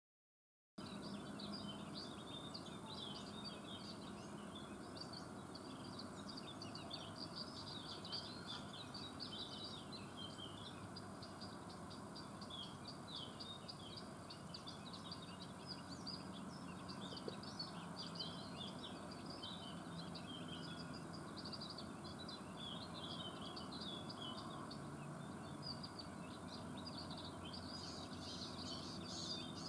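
Small songbirds chirping and twittering in a dense, continuous run of short calls over a steady background hiss, starting abruptly just under a second in.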